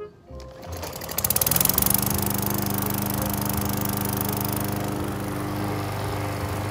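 Push lawn mower's small gasoline engine starting up about a second in, then running steadily with an even, fast pulse.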